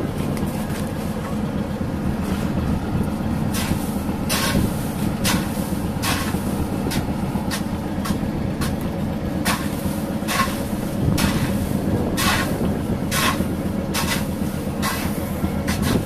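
A fishing boat's engine running steadily, with a scattering of irregular sharp scrapes and knocks over it.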